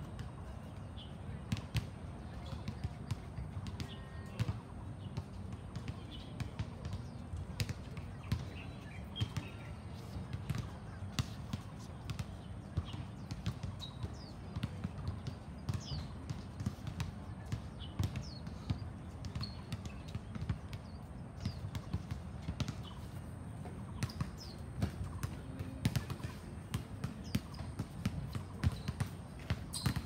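Basketballs bouncing on an outdoor court, heard as irregular sharp thuds, with birds chirping and a steady low background rumble.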